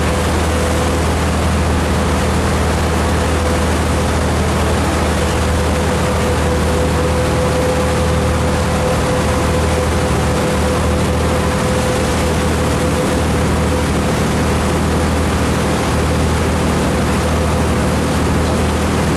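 Sightseeing boat's engine running steadily at cruising speed, a low drone with a thin steady tone above it, under the rush of wind and water from the boat's motion.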